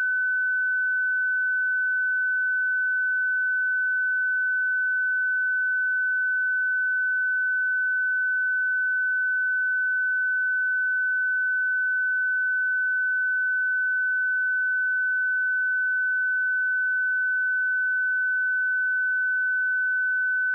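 A steady 1508 Hz sine-wave test tone: a single pure, unchanging high tone held at constant level.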